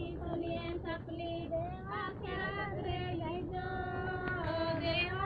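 A woman singing a melody in a high voice, with long held notes.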